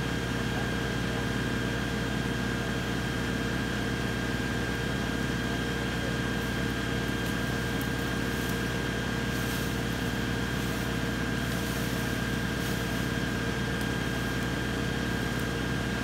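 LS XR3135 compact tractor's diesel engine running steadily, driving a Woodland Mills three-point wood chipper that spins with a steady whine while no brush is yet being fed.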